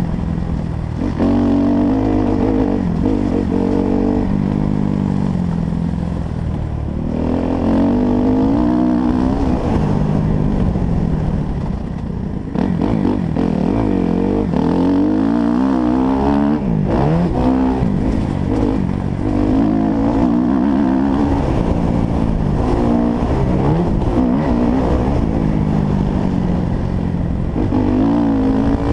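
Motocross dirt bike engine, heard close up from the bike, revving hard and rising and falling in pitch again and again as the rider accelerates, shifts and rolls off the throttle around the track.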